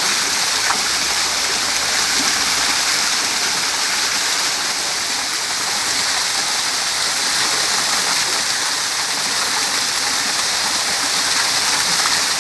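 Small waterfall with water pouring down steadily, a constant hissing rush.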